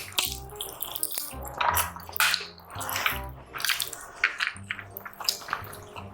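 Close-miked eating sounds, wet smacking and chewing with sharp clicks, over background music with a low bass line.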